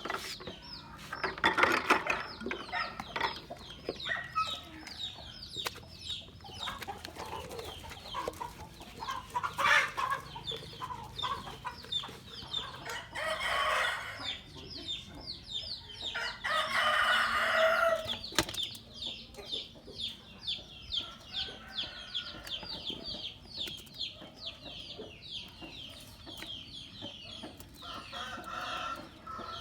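Continuous rapid high-pitched peeping chirps, several a second, from small animals, with a few louder, fuller calls breaking in now and then.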